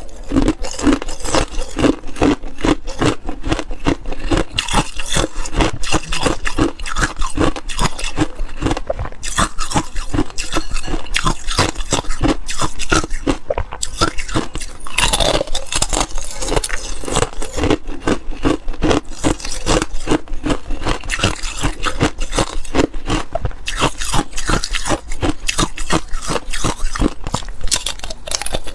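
Thin, hollow cubes of clear ice being bitten, chewed and snapped apart: a continuous run of crisp cracks and crunches, several a second.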